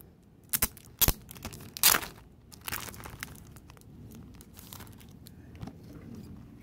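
Plastic packaging crinkling and crackling as a 3D photo is slid out of its sleeve, with two sharp snaps in the first second and the loudest rustle about two seconds in, then fainter crinkles and ticks.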